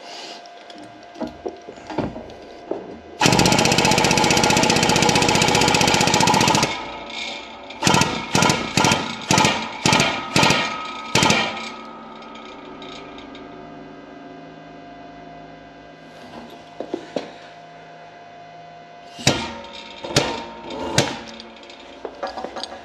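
Shop press seating the top ball bearing onto a stepper motor's new shaft through a socket. There is a loud, rapid mechanical chatter for about three and a half seconds, then a quick series of about seven sharp metallic clanks, and three or four more near the end.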